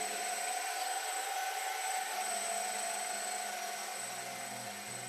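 Small electric drive motors of a radio-controlled model tug running, a steady high whine over a hiss, as the boat moves through bathtub water. Music comes in near the end.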